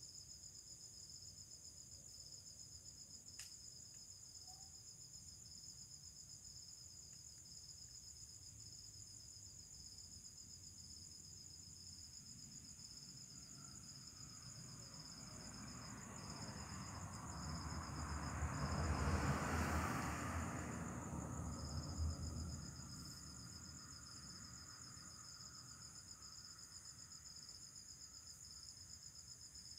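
Crickets chirping steadily in two high, continuous trills. About halfway through, a broad rushing noise swells over several seconds and then fades away.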